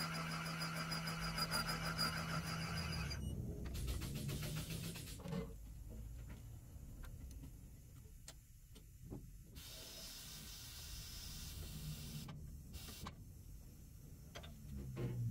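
Valve seat cutting machine's spindle motor running with a steady whine as a three-angle cutter cuts a valve seat in a John Deere 6068 cylinder head, stopping about three seconds in. Then come light metal clicks as the cutter is handled and moved to the next seat, a hiss for a couple of seconds, and a clunk at the end.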